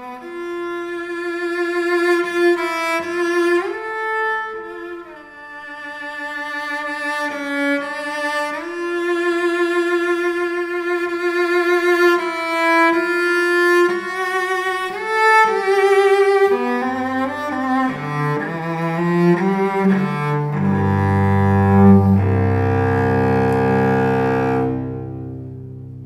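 Cello by Daniele Scolari, built on the Stradivari 1710 model, played with the bow in a slow improvisation of long notes with vibrato. About two-thirds through, the line drops into the low register and ends on held low notes that die away.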